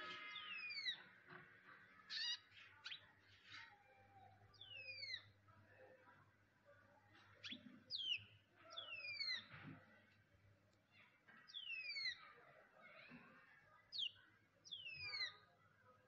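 A small songbird calling: sharp whistles that sweep steeply downward, repeated every second or two and often given in pairs, with a few short chip notes between them.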